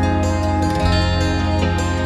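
Gentle new-age background music: soft plucked notes over steady sustained low tones, with a new note coming in about a second in.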